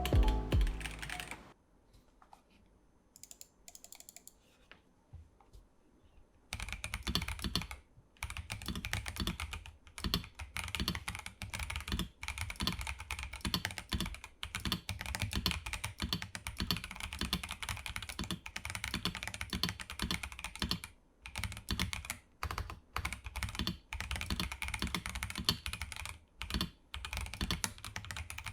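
Typing on a KBD67 Lite R2 gasket-mount custom mechanical keyboard with Gazzew Boba U4T tactile switches, a polycarbonate plate and PBT keycaps. After a near-quiet stretch the typing starts about six seconds in and runs as fast, irregular keystrokes with brief pauses.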